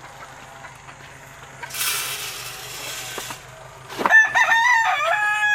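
Game rooster crowing once, one long stepped call about four seconds in, the loudest sound. A rushing noise lasts about a second and a half before it.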